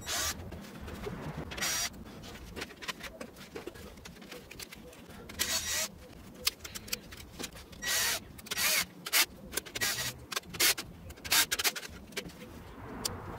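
YATO cordless drill-driver running in short bursts as it backs out screws from a copier fuser unit, with clicks and rattles of the metal and plastic parts being handled.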